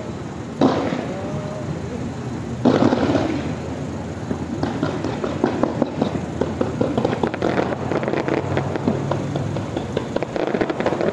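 Aerial fireworks: two loud bangs, about half a second and two and a half seconds in, each trailing off, then a dense crackle of many small pops from about four and a half seconds on.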